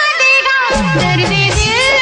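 Hindi film-style song with a wavering, ornamented melody line; about two-thirds of a second in, a steady beat of low drum strokes comes in under it.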